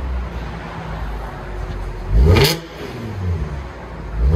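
2015 Audi S5's supercharged 3.0-litre V6 running through a dual exhaust with the resonator deleted and an X-pipe in its place, idling and blipped twice: a sharp rev about two seconds in, and another at the end.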